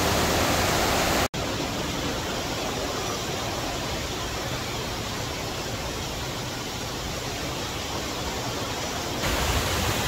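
A tall waterfall's water falling in a steady, even rush, with a dropout for an instant about a second in.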